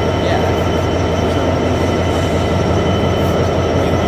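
Class 66 diesel locomotive's two-stroke V12 engine idling while the locomotive stands still, a steady unchanging note with faint steady high whines above it.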